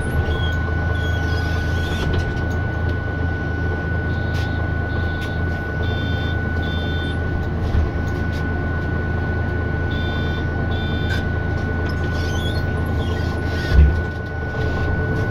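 Cabin noise of a MAN Lion's City city bus underway, with its MAN D2066LUH diesel engine and Voith automatic gearbox running. A steady low hum sits under a constant thin whine. Short electronic beeps come in pairs about six and ten seconds in, and a single thump comes near the end.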